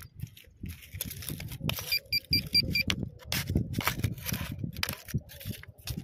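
Handheld pinpointer metal detector giving a quick run of five short, high beeps about two seconds in, signalling metal close to its tip. Soil and stones crunch and scrape under handling throughout.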